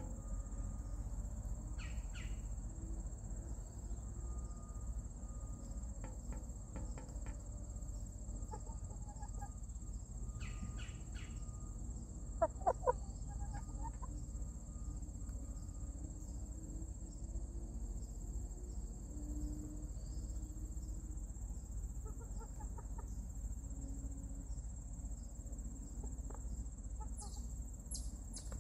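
Hens clucking now and then, with a quick cluster of sharper, louder calls about twelve seconds in. Insects chirp steadily and high in the background.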